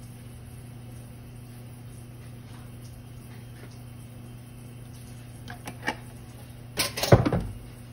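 Steady low hum in a quiet kitchen, with a few light clicks, then near the end a short, loud clatter of things being handled on the kitchen counter.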